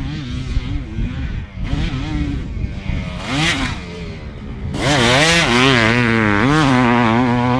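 2006 Honda CR500's single-cylinder two-stroke engine revving hard as the dirt bike is ridden, its pitch swinging up and down with the throttle. It is faint at first and becomes much louder about five seconds in, holding a high steady rev near the end.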